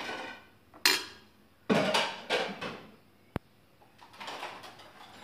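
Kitchen handling noise: a metal spoon and ceramic plates knocking and clinking, with hands scraping food on a plastic cutting board, in a few separate knocks and scrapes, the loudest about two seconds in.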